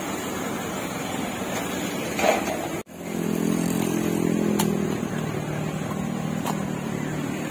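Steady street noise. After a sudden cut about three seconds in, a vehicle engine hums steadily over it.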